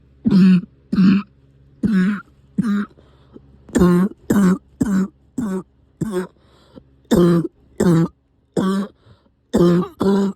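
Repeated coughing: about fourteen short, loud, voiced coughs in quick fits of two to five, with brief pauses between the fits.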